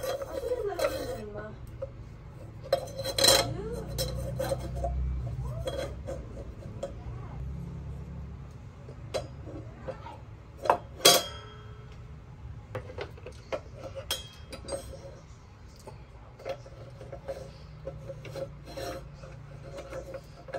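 Objects being handled, with scattered clinks and knocks. Two sharp clacks come close together about eleven seconds in.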